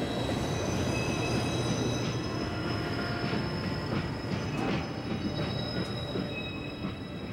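Train running on the rails: a low rumble with steady high-pitched wheel squeal and a few knocks, easing off a little near the end.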